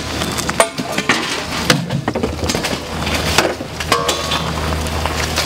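Hard plastic car parts being handled and worked apart: an irregular run of clicks, knocks and creaks.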